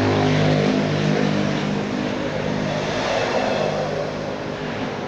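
Motor-vehicle engine from road traffic, a steady hum over road noise that slowly fades toward the end.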